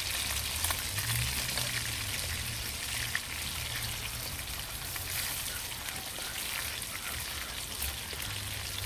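Banga Mary fish frying in hot oil in a pot over an open fire: a steady sizzle with small scattered crackles.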